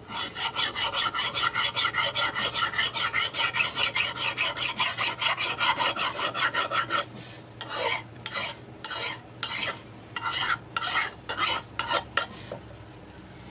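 A hand file rasping along the edge of a forged steel meat cleaver to sharpen it: quick, steady back-and-forth strokes for about seven seconds, then slower, separate strokes about two a second.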